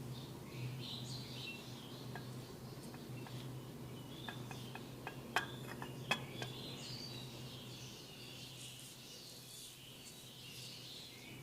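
Small birds chirping throughout over a steady low hum. A run of sharp clicks comes about four to six and a half seconds in, the two loudest about a second apart.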